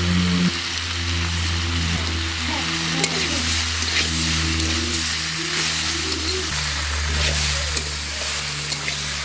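Potato, brinjal and bean curry frying and sizzling in an iron kadai while a metal spatula stirs and scrapes it, with a few sharp scrapes. Background music with a steady low bass sounds underneath.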